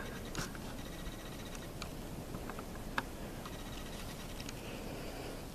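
Quiet woodland background with a steady faint hiss and a few soft, scattered clicks and ticks. One sharper tick comes about three seconds in.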